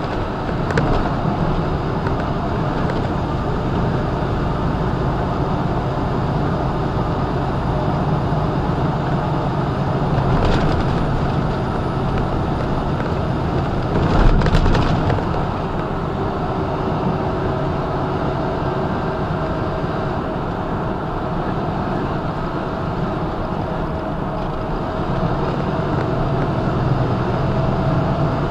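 Steady semi-truck cab noise at highway speed: the diesel engine and tyre and road rumble heard from inside the cab. A brief louder thump comes about halfway through.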